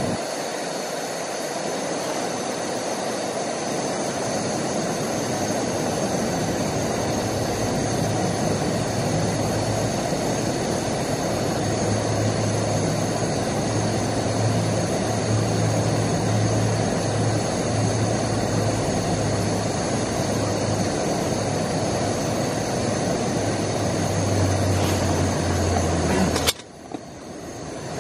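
MSR WhisperLite International liquid-fuel stove burning steadily under a BRS far-infrared heater attachment, giving a continuous rushing burner noise. The noise cuts off suddenly near the end.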